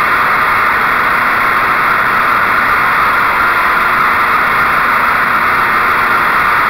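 Wright Stander stand-on mower's Kawasaki FS600V V-twin engine running steadily at full throttle while the deck cuts through dry leaves, a loud, even rushing drone.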